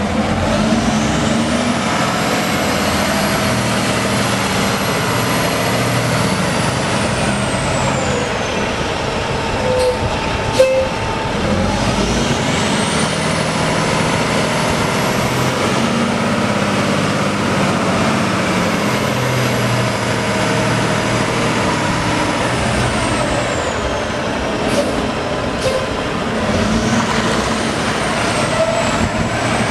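Cummins ISX 14.9-litre inline-six turbo diesel of a Mack CL733 semi tractor running as the truck drives, its engine note rising and dropping in pitch. A high whine climbs and falls twice, and a sharp knock sounds about ten seconds in.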